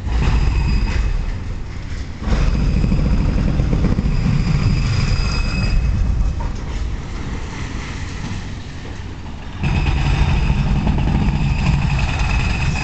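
Demolition machinery at work: a deep engine rumble that surges up sharply three times under load, each surge carrying a high steady whine.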